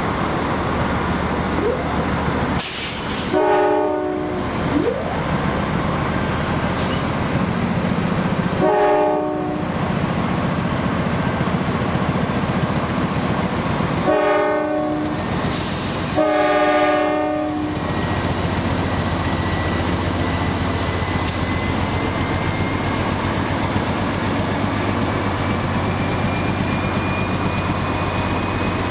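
Norfolk Southern Dash 9-40CW locomotive's K5LA air horn sounding four blasts, the last one the longest, over the steady rumble of passing diesel locomotives hauling a coal train.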